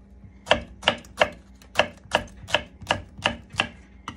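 Kitchen knife chopping a green chili pepper on a wooden cutting board: about nine even knife strokes, roughly three a second.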